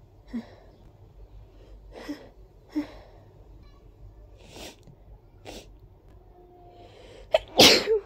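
A person drawing a series of short, sharp breaths that build up to a loud sneeze near the end.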